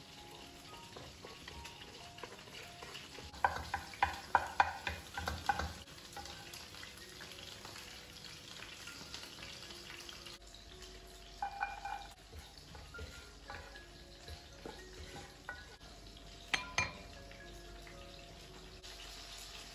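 Beaten egg scrambling in hot oil in a pan, sizzling quietly, with a wooden spatula stirring and scraping against the pan in short bursts: about four seconds in, again around twelve seconds and once more near seventeen seconds.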